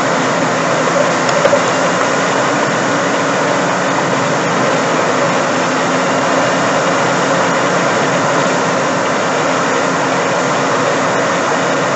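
A heavy machine's engine running steadily, a constant drone with no change in speed.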